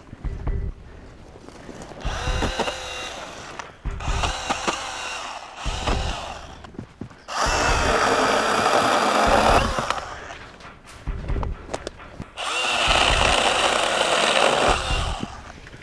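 Makita MUC101D 18V cordless handheld chainsaw running in several short bursts as it cuts through branches, with the two longest, loudest cuts about halfway through and near the end.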